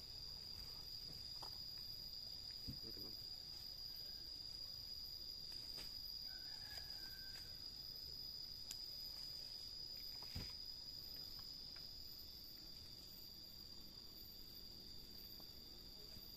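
Insects trilling steadily in one high, unbroken tone, faint, with a couple of soft knocks about three and ten seconds in.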